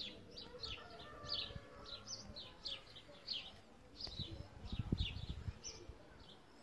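A small bird chirping over and over, about three short chirps a second, each dropping in pitch. A low rumbling noise comes in about four to five and a half seconds in.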